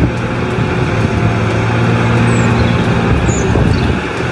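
Caterpillar 345C hydraulic excavator's diesel engine running steadily under load while it digs rock and loads a dump truck: a loud, even drone with a deep hum.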